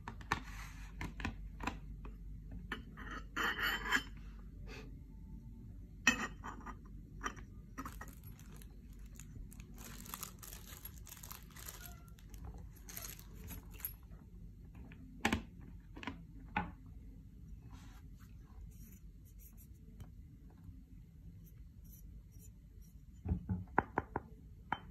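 Handling of a metal headphone stand and its clear plastic packaging tray: scattered clicks and knocks of metal parts, stretches of plastic rustling, and a quick run of clicks near the end.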